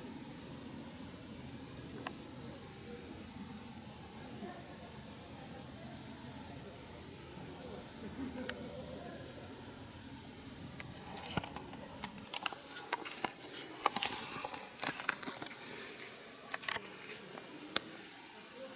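Insects chirping in a steady high, pulsing trill, a few pulses a second, cricket-like. Over the second half, a run of sharp clicks and knocks sounds over it.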